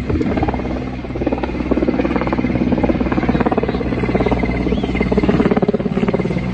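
Firefighting helicopter: a steady rapid rotor chop over a constant engine drone.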